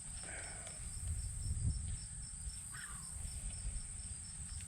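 Crickets chirping: a continuous high trill with a second insect pulsing evenly about three times a second, over a low rumble and a couple of faint rustles.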